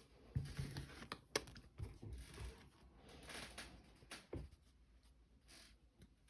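Light handling noises of trading cards and their packaging: soft rustles with scattered taps and a couple of sharper clicks.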